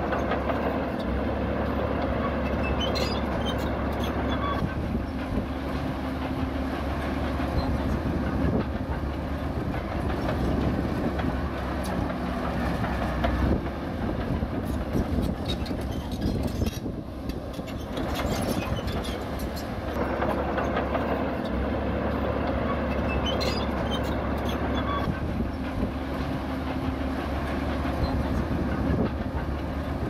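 Zoomlion ZD160S-3 crawler bulldozer at work: its diesel engine runs steadily under load while the steel tracks clank and rattle. The engine eases off briefly a little past halfway, then picks up again.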